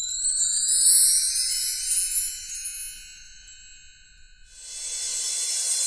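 Intro sound effects: high, shimmering chime-like tones gliding upward, fading away by about three seconds in, then a rising whoosh that swells near the end.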